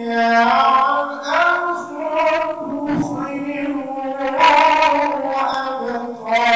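A voice chanting in a drawn-out, melodic style: sung phrases with long held notes, separated by short breaks.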